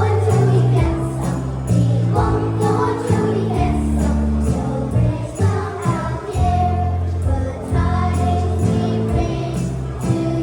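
Music track with a steady beat, jingle bells and sung voices.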